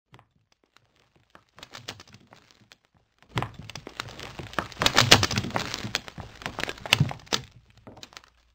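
Cracking and crumbling debris sound effect: scattered sharp cracks build about three seconds in into a dense clatter of breaking pieces over a low rumble, loudest around five seconds in, then thin out to a few last ticks.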